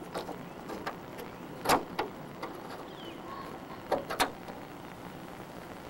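A few knocks and clunks on an aluminum jon boat as someone moves about and handles things in it: the loudest about a second and a half in, and two more close together about four seconds in.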